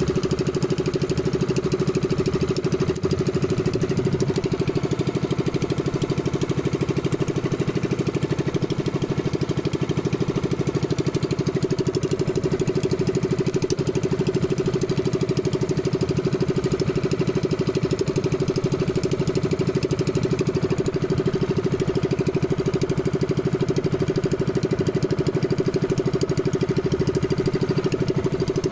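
Small engine of a motorized outrigger boat (bangka) running steadily at trolling speed, an even drone that holds one pitch with no revving.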